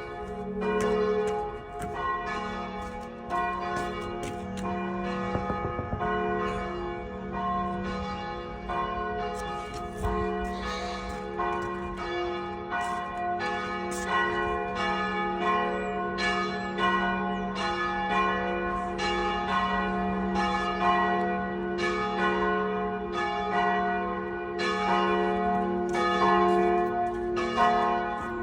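Church bells ringing: a steady stream of strokes from bells of different pitches, each one's ring running on into the next.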